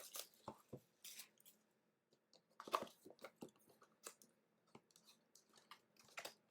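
Faint, scattered crinkling and clicking of plastic wrap and cardboard as a sealed box of trading cards is handled and opened.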